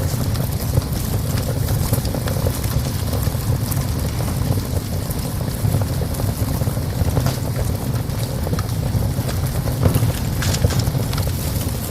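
Wood fire burning in a small stove, with scattered sharp crackles over a steady low rumble.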